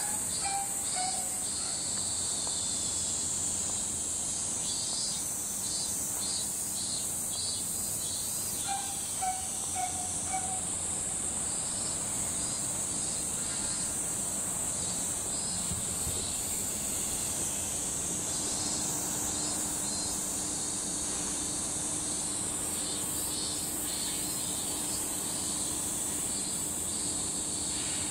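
Steady, high-pitched insect chorus droning in the trees. A short run of falling notes sounds twice, near the start and about nine seconds in, and a faint steady hum joins about two-thirds of the way through.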